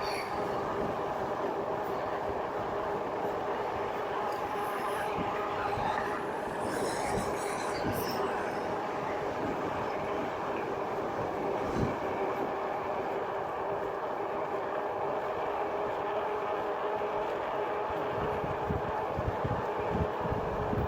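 The 750 W geared rear hub motor of a RadRover electric fat-tire bike whining steadily under heavy power, several steady tones at once. Wind buffets the microphone, with gusts about twelve seconds in and again near the end.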